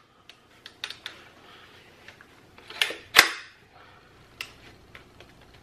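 Sharp metallic clicks from a Henry U.S. Survival AR-7 .22 rifle's safety and action being worked by hand. There are several light clicks, and the loudest comes a little after three seconds in.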